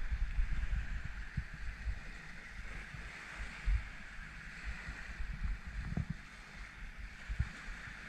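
Small sea waves lapping and washing onto a sandy beach in a steady hiss of surf, with wind buffeting the microphone in an uneven low rumble.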